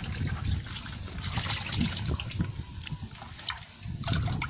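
Water sloshing, splashing and trickling in a plastic bucket as a hand reaches in among the fish, with small splashes throughout and a low rumble underneath.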